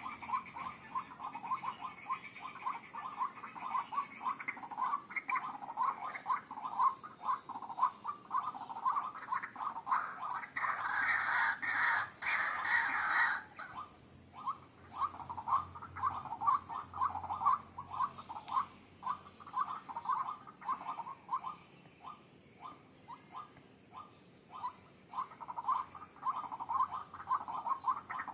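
White-breasted waterhen (ruak-ruak) calls from a bird-lure recording: a long run of rapid, repeated calls, fuller and louder for a few seconds about ten seconds in, then thinner again.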